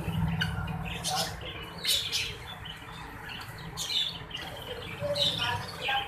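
Caged birds giving short high calls, four or five of them spread over the few seconds, over a low steady hum.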